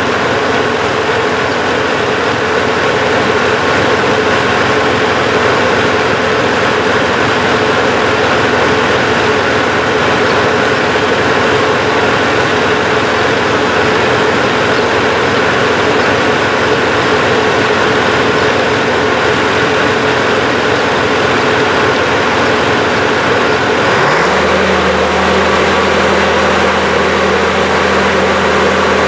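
Diesel shunting locomotive built by Djuro Djaković, its engine idling steadily. About 24 seconds in, the engine speed rises quickly and holds at a higher, deeper steady note, sending up heavy exhaust smoke.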